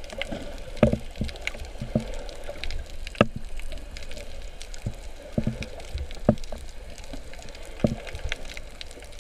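Water sloshing and gurgling around a snorkeler's camera, with a steady low rumble and irregular knocks and clicks, a few of them louder.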